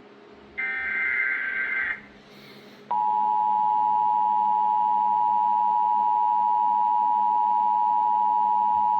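Emergency Alert System SAME header: a harsh, shrill digital data burst lasting about a second and a half, then after a second's pause the two-tone EAS attention signal comes on about three seconds in and holds steady and loud. The tones announce an incoming alert, here a special marine warning.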